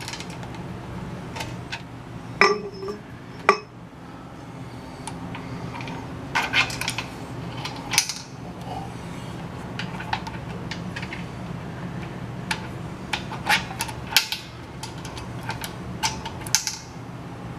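Scattered metallic clinks and clicks, a few of them sharp, as the stainless-steel spring clips and pins are pulled and the detachable handle is taken off a portable air compressor.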